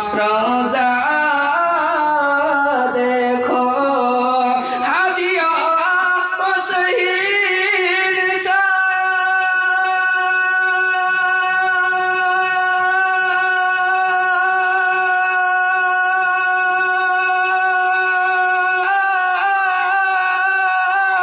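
A man singing an Urdu naat, winding through ornamented, bending phrases, then holding one long steady note from about eight seconds in until near the end, when the melody moves again.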